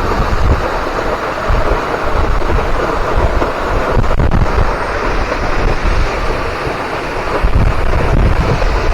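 Hemlock Falls waterfall pouring into its pool, a loud steady rush of falling water, with wind buffeting the microphone in low rumbling gusts.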